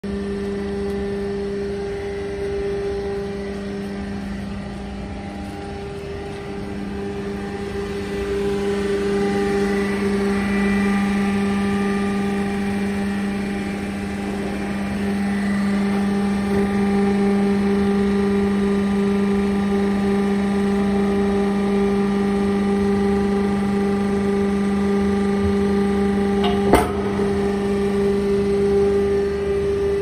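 Hydraulic power pack of a double-action scrap baler running: the electric motor and pump give a steady, even hum with a whine above it. A single sharp click sounds a few seconds before the end.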